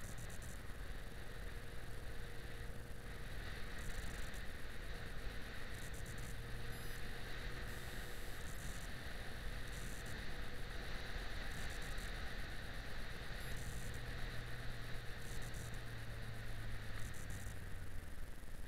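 Yamaha XJ6 Diversion 600's inline-four engine running steadily at cruise, under a steady rush of wind and road noise; the engine note eases slightly near the end.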